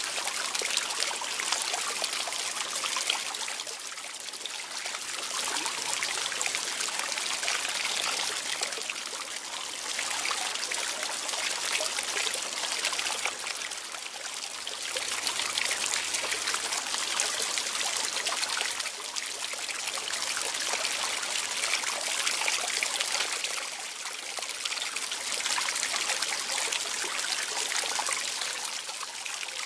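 Water trickling and splashing without a break, swelling and easing every few seconds.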